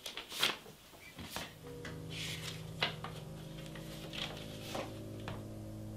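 Paper rustling and crinkling as an envelope is opened and a folded letter is drawn out and unfolded, in short crisp handling sounds. About a second and a half in, a low held music chord comes in and sustains underneath.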